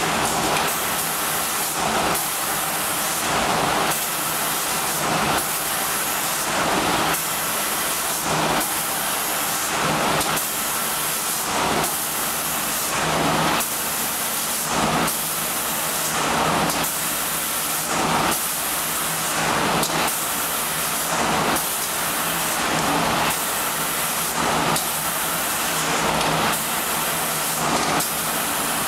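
Automatic UV-PU spray-coating line for wooden doors: a steady hiss of air and spraying paint, swelling in regular pulses about every one and a half seconds as the carriage-mounted spray guns traverse the panels, over a steady machine hum.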